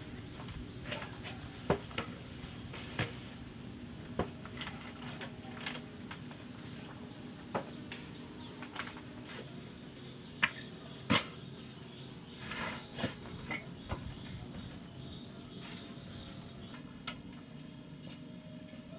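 Scattered clinks and knocks of bottles and jars being set down on a woven bamboo tray, over a steady low hum. A high, even insect trill comes in about halfway through and stops a couple of seconds before the end.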